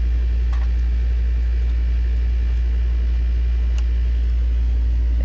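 A steady low mechanical hum, like a motor running, with a few faint clicks over it.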